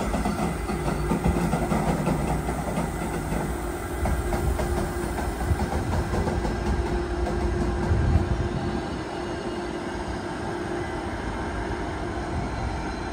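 NS class 186 TRAXX electric locomotive moving slowly through the station: a steady rumble of wheels on rail with a held electric hum through the middle, and one louder thump about eight seconds in.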